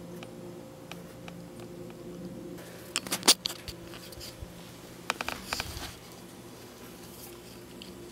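Steady low hum in a quiet room, with a short cluster of sharp clicks about three seconds in and a rattling run of clicks about five seconds in.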